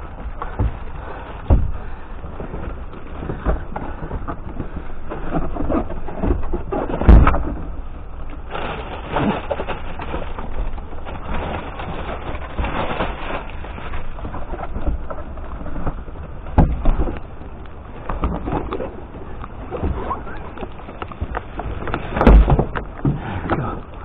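Rummaging through rubbish in a dumpster: rustling, scraping and knocks as a large cardboard toy box is handled and shifted, with loud thumps about seven seconds in and again near the end.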